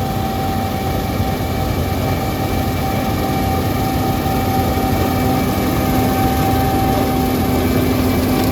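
John Deere combine harvester running steadily while cutting barley with its straw chopper on: a constant machinery drone with a steady whine on top.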